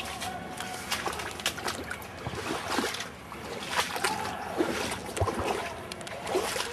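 Fast, shallow river water rushing and splashing over stone blocks, a steady wash broken by many short splashes.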